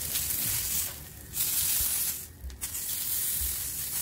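Chicken tikka skewer sizzling in olive oil on a hot, heavy dosa griddle as it is turned over with a flat metal spatula. The sizzle drops away briefly twice, about a second in and again just past two seconds.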